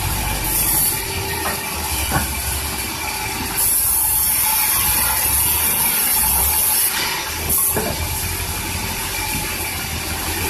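Sawmill band saw running steadily as a large mango log is fed through its blade. The high hiss of the blade cutting the wood grows louder from about three and a half to seven seconds in.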